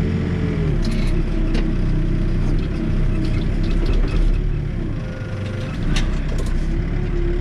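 Backhoe loader's diesel engine running under working load, its note shifting just under a second in, with scattered clanks and rattles from the digging.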